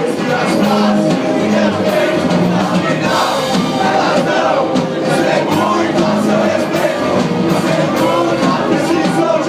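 Hardcore punk band playing a song live, with shouted vocals over the full band.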